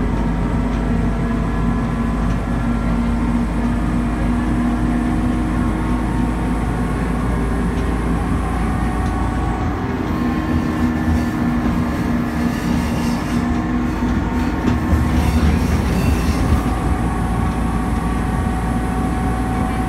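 Diesel railbus heard from its driver's cab while running along a branch line: a steady engine drone, with wheel-and-rail noise from the track that grows louder and rougher in the second half.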